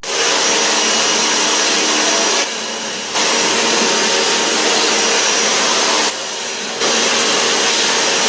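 High-pressure washer spray, a steady rushing hiss that eases off briefly twice, about two and a half and six seconds in.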